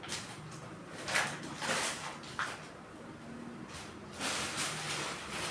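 Eshero SH320 ICU ventilator cycling: hissing puffs of air through the breathing circuit, the second coming about three seconds after the first, with a short click between them.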